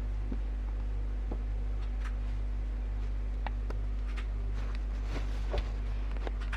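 A steady low electrical hum with scattered light clicks and taps, one a little louder about five and a half seconds in.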